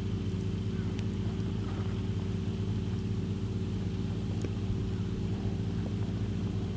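Low, steady hum of an engine running at idle, unchanging throughout, with a few faint crackles from a wood campfire.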